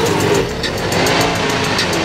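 A vehicle engine revving, its pitch rising and falling in arcs, with music playing alongside.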